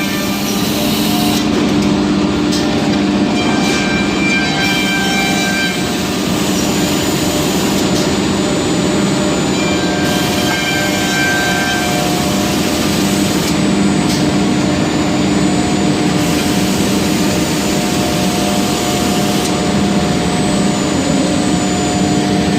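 Brandt KDF780 2C edgebanding machine running: a steady motor hum with several tones under a broad mechanical noise, whose high hiss changes every few seconds.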